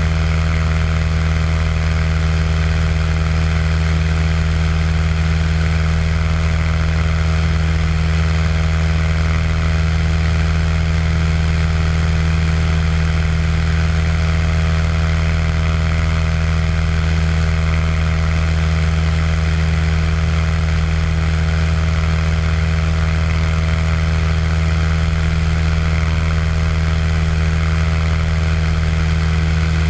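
Cessna 182 single piston engine and propeller holding a steady cruise drone, heard from inside the cabin: a deep even hum with a rushing hiss above it, unchanging throughout.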